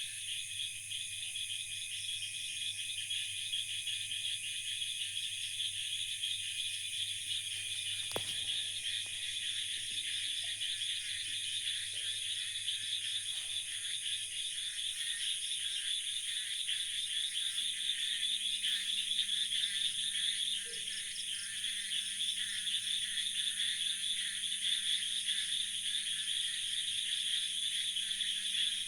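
Dense night chorus of frogs and insects calling steadily after heavy rain, a fast pulsing trill of many overlapping voices. A single brief click comes about eight seconds in.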